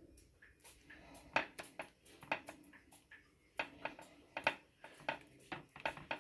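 Metal spoon spreading a thick white sauce over a flatbread on a ceramic plate, giving a string of short, irregular scrapes and clicks.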